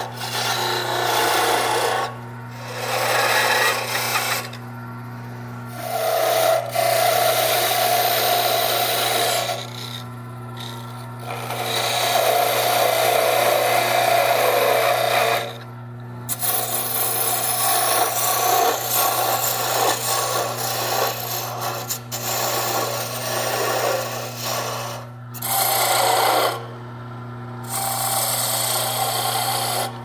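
Wood lathe running with a steady low hum while a hand-held turning tool cuts a spindle of wooden knobs. The rasping cut comes in passes, with several short pauses where only the lathe hum remains.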